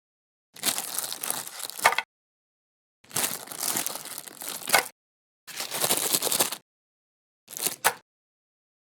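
Crinkling and crunching of chocolate-coated ice cream bars and their wrappers, in four short bursts cut apart by dead silence. Each burst ends in a sharp crack.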